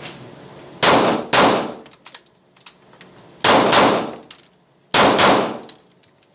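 Taurus G3C 9mm pistol firing six shots in three quick pairs, each pair a second and a half to two seconds after the last, echoing in an indoor range.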